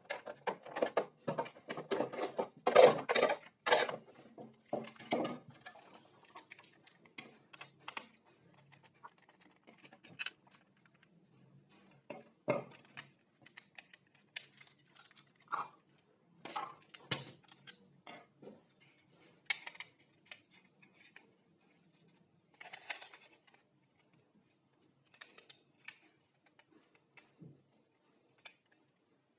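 Small metal parts and hand tools clinking and knocking as they are handled. The clatter is dense for the first few seconds, then comes as scattered single clicks and taps.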